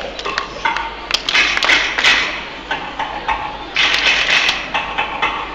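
Belly-dance drum solo music: a hand drum, typically a darbuka (goblet drum), playing fast, dense strokes in a driving rhythm, with louder flurries about a second in and again near four seconds.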